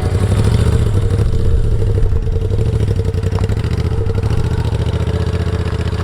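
Moto Guzzi motorcycle's V-twin engine running steadily at idle, a loud, even low rumble.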